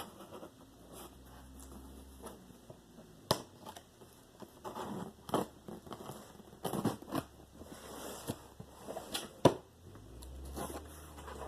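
A cardboard shipping box being opened and handled: tape and cardboard tearing, crinkling and rustling, with several sharp knocks, the loudest about nine and a half seconds in.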